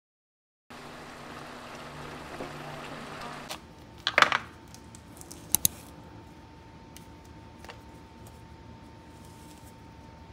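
Pork stew simmering in a frying pan with a steady bubbling hiss while a wooden spatula stirs it; this cuts off abruptly after about three and a half seconds. Then a short, loud crackly rustle as a banana is peeled by hand, and two sharp taps soon after, followed by faint room tone.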